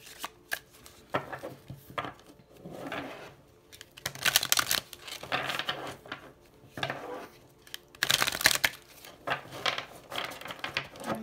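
A deck of matte-finish oracle cards being shuffled by hand, the cards flicking and slapping together in repeated bursts, loudest about four and eight seconds in.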